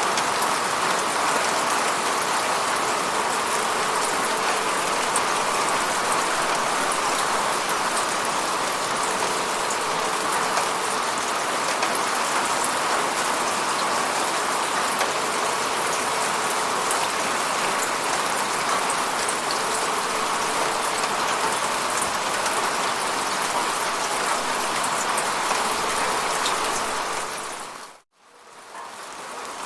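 Steady rain falling, a dense even patter with fine drop ticks. Near the end it fades out briefly to silence and then fades back in.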